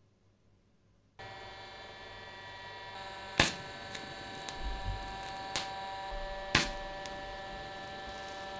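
TIG welding arc struck about a second in and burning steadily with an even buzz and whine while filler rod is fed in to build up material on steel. Two loud sharp pops about three seconds apart stand out over a few smaller crackles.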